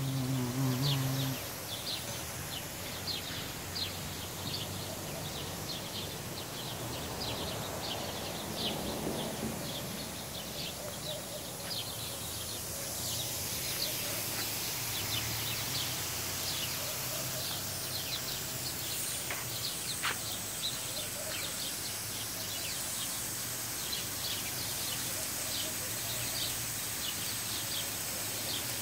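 Small birds chirping in short, quick calls over and over. A steady high hiss comes up about halfway through.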